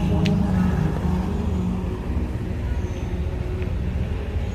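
Steady low rumble of motor vehicle road noise.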